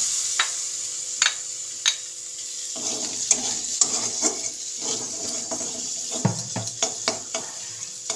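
Marinated prawns sizzling in hot oil in a steel wok, with a metal spatula stirring them and scraping and knocking against the pan several times.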